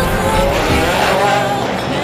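Background music with race car engines passing underneath it.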